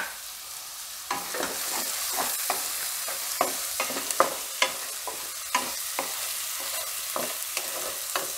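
Chopped spring onions sizzling in hot oil in a kadai, the sizzle strengthening about a second in. A spatula stirs and scrapes against the pan, with irregular knocks about twice a second.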